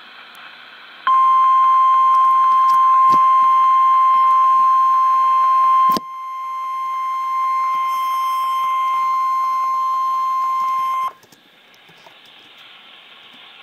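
Emergency Alert System attention tone: one steady, single-pitched electronic tone lasting about ten seconds, dropping in loudness with a click about halfway through. Faint radio hiss comes before and after it.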